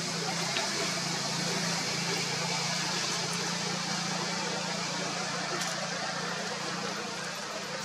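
Steady outdoor background noise: an even high hiss with a low steady hum underneath, like distant traffic.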